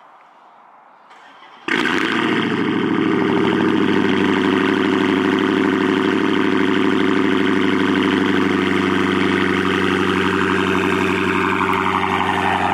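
2019 Dodge Charger Hellcat's supercharged 6.2-litre HEMI V8 on a cold start: it fires suddenly and loudly about two seconds in, then runs at a steady idle.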